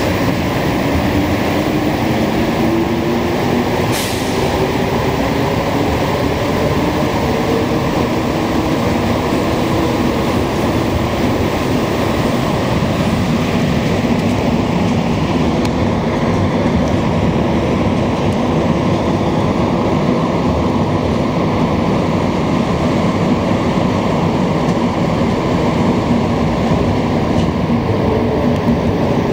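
Montreal metro Azur train on rubber tyres running through the tunnel, heard from inside the car: a steady loud rumble with a motor whine that rises as it picks up speed and falls again as it slows into the next station near the end. A single sharp click about four seconds in.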